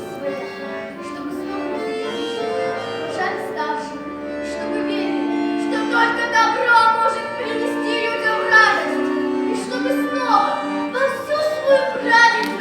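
A children's and youth folk-song choir singing, with long held notes.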